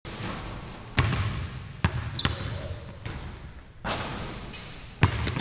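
A basketball bouncing on a hardwood gym floor, several sharp thuds about a second apart, with sneakers squeaking briefly in between.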